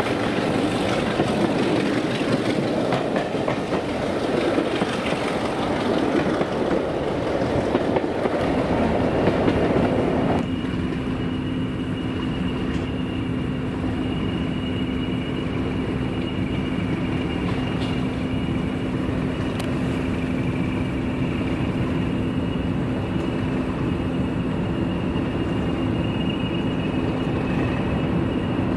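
Diesel-hauled train running on the line, wheels clattering over the rails. About ten seconds in the sound changes abruptly to a steadier engine drone with a held tone.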